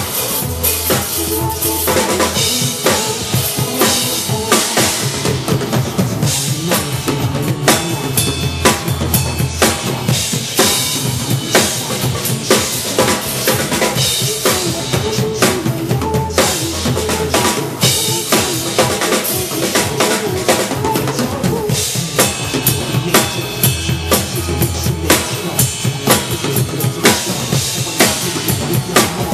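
Drum kit played to a backing track: a dense run of kick drum and snare hits over a backing of held bass notes and melody.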